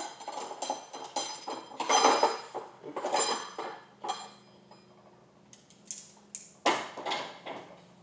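Sectional garage door with a broken spring being pushed up by hand: its steel rollers and panels rattle and clank in the tracks, with ringing metal clinks, over the first four seconds. A single sharp metal clank comes near the end.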